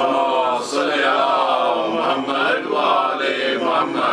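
A man chanting a recitation in a melodic voice, holding long notes that slide up and down in pitch.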